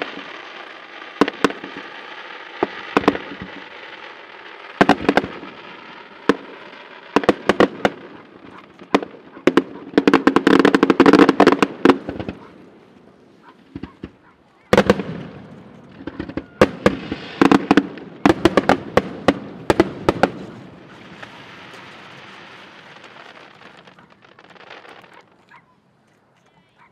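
Aerial fireworks display: repeated sharp bangs of shells bursting, building into two dense volleys of rapid bangs and crackling with a short lull between, then dying away near the end.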